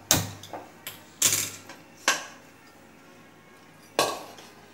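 Steel ladle clinking against the side of an aluminium pressure cooker while stirring cooked dal and mutton bones: several sharp, ringing knocks at uneven spacing, with a quiet gap of nearly two seconds before the last.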